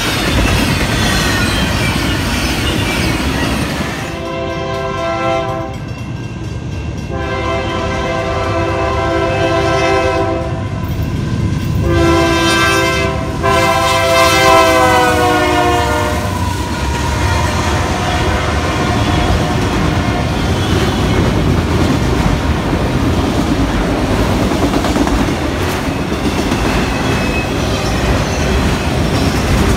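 Freight train wheels rolling past. Then a Union Pacific diesel locomotive's multi-chime air horn sounds long, long, short, long, the grade-crossing signal, its pitch dropping as the locomotive passes close by. Rail cars clatter and rumble past after it.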